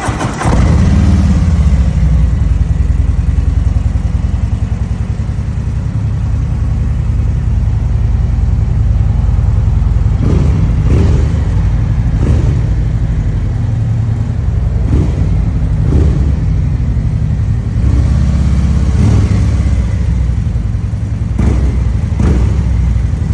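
Harley-Davidson V-twin fitted with Vance & Hines slip-on mufflers, running loud at idle. The throttle is blipped several times in the second half, giving short sharp revs.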